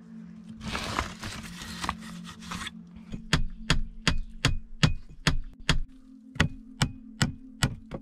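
A rustle for a couple of seconds, then nails being driven into a wooden window frame: a steady run of sharp blows, about two or three a second, each with a faint metallic ring.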